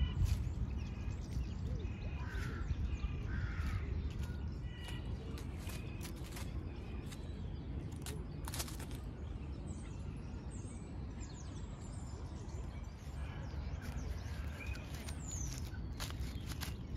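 Park ambience: birds calling now and then over a steady low rumble, with scattered short crackles of dry leaves as a grey squirrel moves through the leaf litter.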